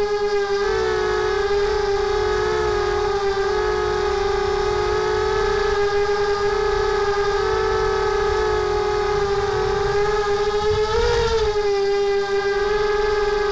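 Mini quadcopter's SunnySky brushless motors and propellers whining in flight: one steady high drone that wavers in pitch with the throttle, rising and wobbling briefly near the end, over a low rushing noise.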